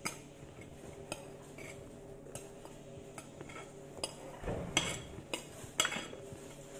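Chopped cucumber, apple and green pepper pieces being pressed down by hand into a large plastic jar: scattered soft knocks and clicks of the jar and the shifting pieces, coming more often in the second half.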